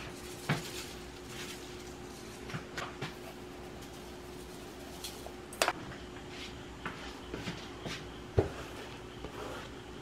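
A few scattered clinks and knocks of pots, bowls and utensils during cooking, the sharpest a little past eight seconds in, over a faint steady hum.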